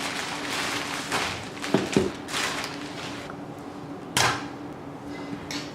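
A parcel being handled by hand: rustling with a few knocks and bumps, two close together about two seconds in and another about four seconds in.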